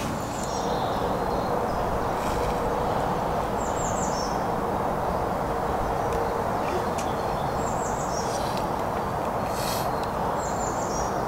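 Outdoor woodland ambience: a steady background rush with small birds giving short, high, falling chirps now and then.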